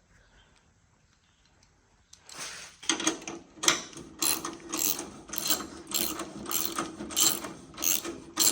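Hand ratchet wrench clicking in quick repeated strokes, about two a second, as a bolt on the motorcycle's lowering kit is turned. It starts about two seconds in.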